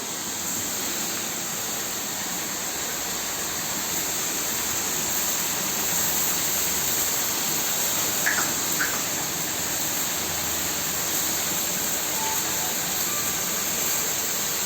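High-pressure cow-shed washer, an electric motor driving a three-piston pump, spraying a steady hissing jet of water from its spray gun.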